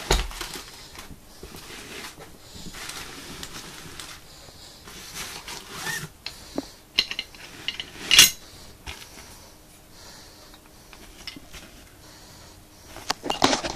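Metal laryngoscope blades and handle clicking and clinking as they are handled in a fabric kit roll, with cloth and plastic rustling. Scattered light clicks, and one sharper clack about eight seconds in.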